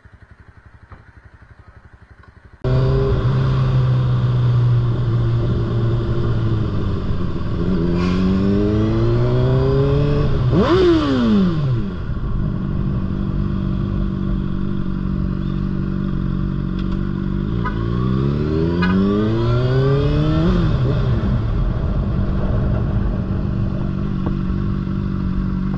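Motorcycle engine under way, cutting in suddenly a few seconds in and rising in pitch as it accelerates, twice. About midway a brief, louder sweep falls in pitch.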